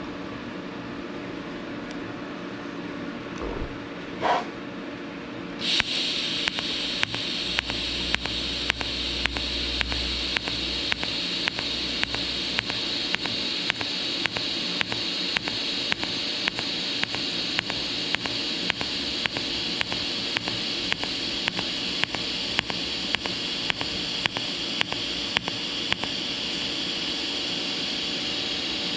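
Pulsed TIG welding arc on thin stainless exhaust tubing. The arc strikes suddenly about six seconds in, then hisses steadily with an even tick from the pulser about one and a half times a second. Before it, a steady hum and a brief rising tone.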